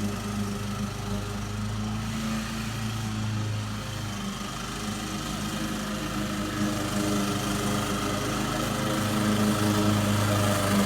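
Toro commercial walk-behind mower's 179cc Kawasaki single-cylinder engine running steadily, growing a little louder near the end.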